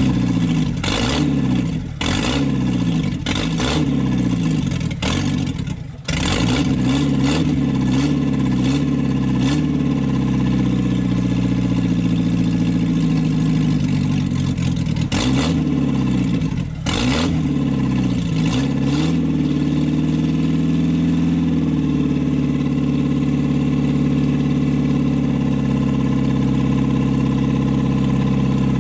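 Datsun A-series four-cylinder engine running just after its first start following an exhaust valve job, revved up and down again and again in the first half, nearly dying about six seconds in, then held at a steady speed for the last several seconds. It will not idle on its own, which the crew puts down to a vacuum leak from an unhooked, split hose.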